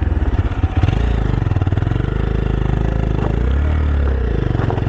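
Motorcycle engine revving up and easing off twice as the bike pulls on loose, muddy gravel where it skids.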